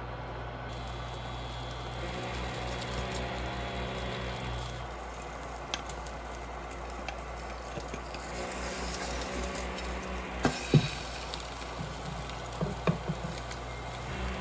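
Egg-soaked bread frying in a pan, with soft sizzling. A few sharp knocks of a wooden spatula against the pan come in the last few seconds.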